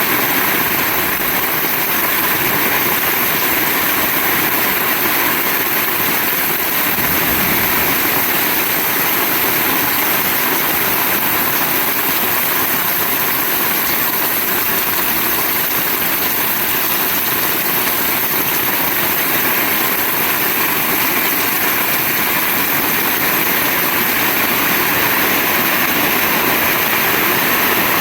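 Heavy rain falling, a loud, steady, dense hiss.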